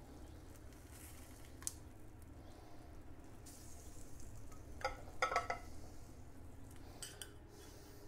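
Metal serving utensils clinking and scraping against a glass baking dish and a china plate as cooked fish is lifted out and served: a single light clink about a second and a half in, a cluster of sharper clinks about five seconds in, and a couple more near the end.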